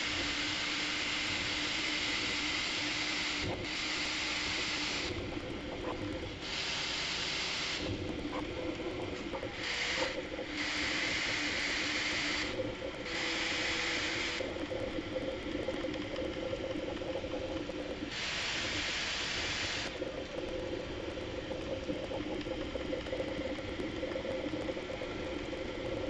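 Bambu Lab A1 3D printer running during a print, played back sped up: a hiss that cuts in and out about seven times, most of them in the first 20 seconds, over a steady motor hum that shifts pitch partway through.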